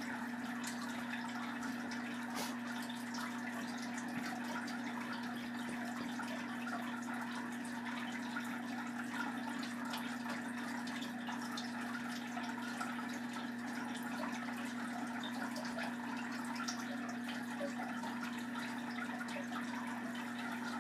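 A steady low hum with an even hiss over it, unchanging throughout, with a few faint scattered ticks.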